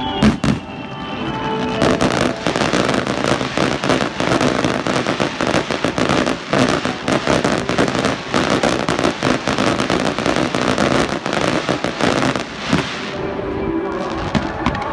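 Fireworks display: one loud bang just after the start, then from about two seconds in a dense, rapid run of bursts and crackling that goes on until near the end, over music.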